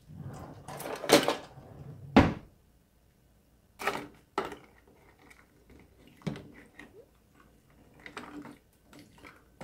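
A slotted spoon stirring frozen shrimp in a pot of water, knocking and scraping against the pot in irregular clatters, loudest a little over a second in and again at about two seconds.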